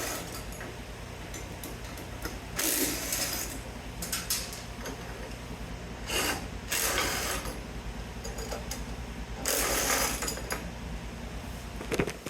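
Nuts and bolts being backed off electrical panels with a ratchet-type tool: several short bursts of ratcheting, each under a second, over a steady low hum that cuts off near the end.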